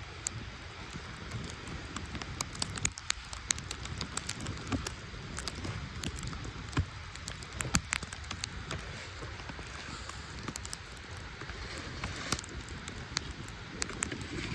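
Footsteps crunching through snow: irregular sharp crackles over a steady rustling hiss.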